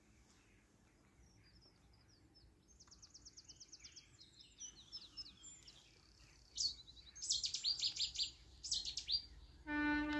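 Songbirds singing, rapid high trills and chirps that come thicker and louder over several seconds. Near the end a Class 37 diesel locomotive's horn starts, a loud low note.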